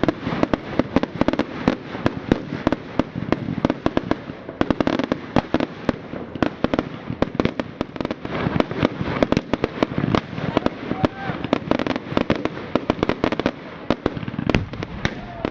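Firework display: a rapid, unbroken barrage of bangs and crackles, several a second.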